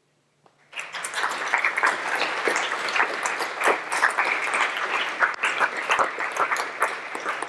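Audience applauding, a dense patter of many hands clapping that begins about a second in and keeps up steadily.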